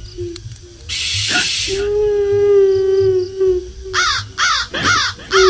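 Horror sound effect of a ghostly woman's wail: a breathy hiss about a second in, then a long, steady moaning tone. From about four seconds in comes a run of short, harsh, shrill calls, about two a second.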